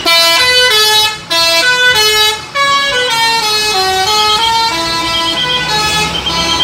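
A musical vehicle horn playing a tune of short stepped notes, with two brief breaks about a second in and about two and a half seconds in.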